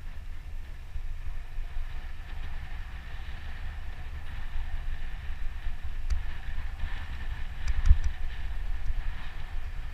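Mountain bike rolling over a dirt trail, heard through a bike-mounted action camera: a steady low rumble of wind on the microphone and tyre and frame noise, with a short clatter from the bike about eight seconds in.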